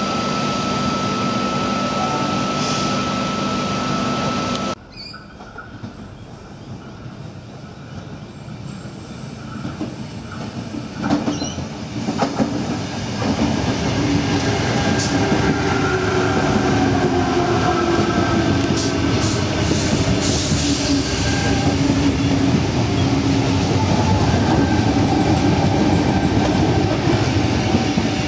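Sydney Trains Waratah (A set) electric train running past a station platform: loud, sustained wheel-on-rail noise with a whine from the traction motors, clicks of the wheels over rail joints and some wheel squeal. The first few seconds hold a different steady mechanical hum with a constant high tone that cuts off suddenly.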